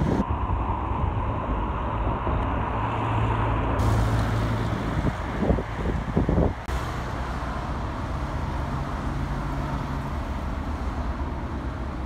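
Road traffic on a city avenue: cars driving past, with engines and tyres making a steady rumble. Short gusts of wind hit the microphone about midway.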